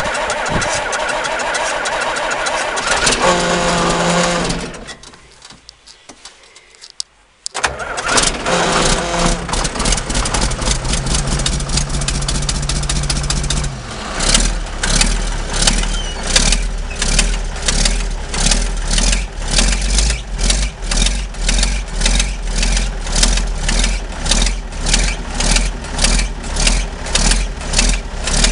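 John Deere 4840's turbocharged six-cylinder diesel cranking on the starter, stopping briefly, then cranking again until it catches about halfway through. It then runs cold with a steady pulsing beat.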